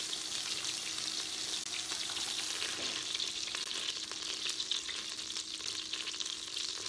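Butter sizzling in the hot stainless inner pot of an Instant Pot: a steady frying hiss with fine crackling.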